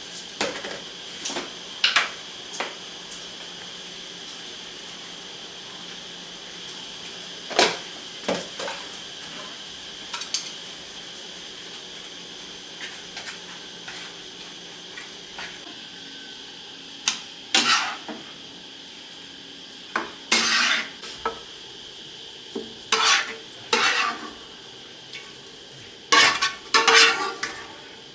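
Metal utensils clinking and scraping against cookware and dishes, in scattered strikes that come more often in the second half, over a steady faint high hiss.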